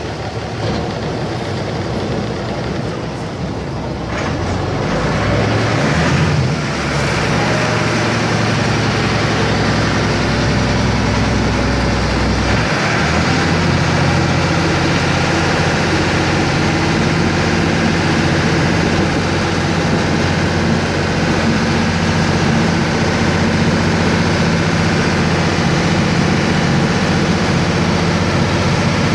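A ferryboat's engine running steadily, heard from on board, with a steady hiss over it. It grows louder about five seconds in, and its low hum changes pitch and settles about halfway through.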